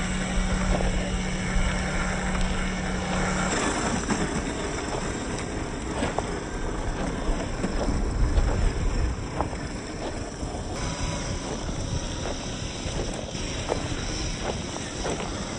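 Radio-controlled scale crawler truck driving over rough ground. A steady low motor hum stops about three and a half seconds in, then comes rough rolling noise with scattered small knocks.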